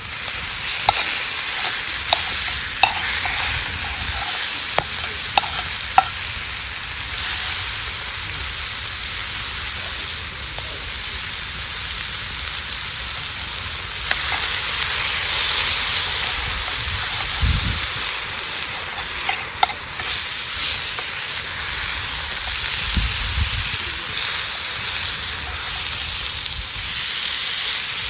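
Steak sizzling as it fries over a campfire: a steady hiss with scattered sharp pops and clicks, most of them in the first few seconds and again about two-thirds of the way through.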